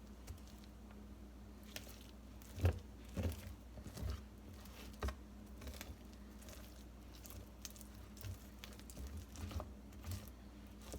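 Hot peanut brittle being pressed and stretched out by hand as it starts to harden: a string of soft knocks and crinkling, busiest a few seconds in and sparser later.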